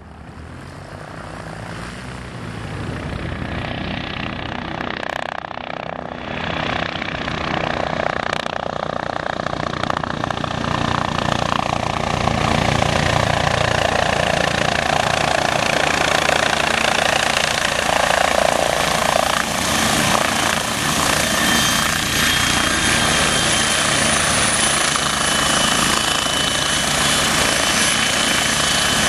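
MBB Bo 105 helicopter's rotor and twin turboshaft engines, growing louder over roughly the first ten seconds and then running steadily with a thin, high turbine whine over the rotor noise.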